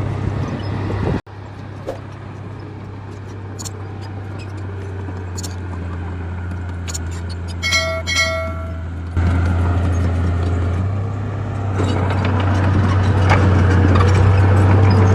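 Diesel engine of heavy earthmoving machinery running with a steady low drone, with scattered metallic clanks and knocks and two short beeps about eight seconds in. The engine sound changes abruptly about a second in and again about nine seconds in.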